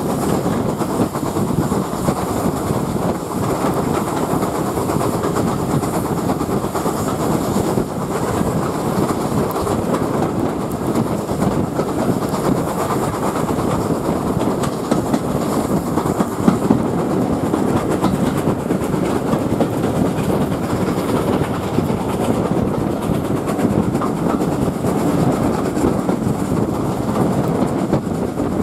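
Steam-hauled train of coaches heard from an open carriage window, double-headed by GWR 7828 Odney Manor and GWR 9351: a loud, steady mix of the locomotives working ahead and the coach wheels running on the rails.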